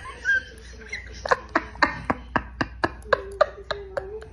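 A woman's stifled, breathy laughter: quick gasping pulses about four a second, with a thin high squeal under the last second of them.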